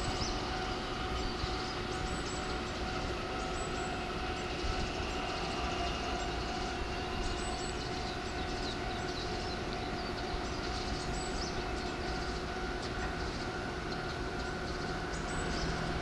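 Keikyu electric train running slowly, a steady hum of several held tones with occasional faint clicks.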